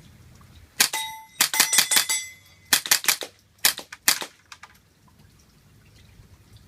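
Rapid string of quiet, suppressed .22 rifle shots from a Ruger 10/22 with a Gemtech Mist-22 integrally suppressed barrel, firing CCI Mini-Mags. The shots come in quick clusters, with a steel plate ringing from the hits. One more shot comes near the end.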